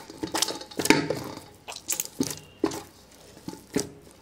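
Oiled maida dough being kneaded by hand in a stainless-steel bowl: irregular wet squelches and slaps, a few each second.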